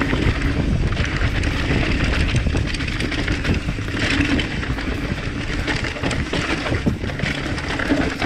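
Mountain bike riding fast down a dry dirt singletrack: tyres rumbling and crunching over dirt and rocks, with the bike rattling and knocking over the bumps.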